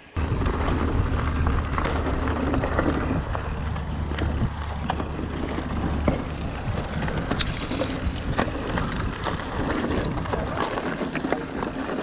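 Mountain bike riding over a rough trail: a steady rush of tyre and trail noise with scattered clicks and knocks as the bike rattles. A low rumble sits under it for about the first six seconds.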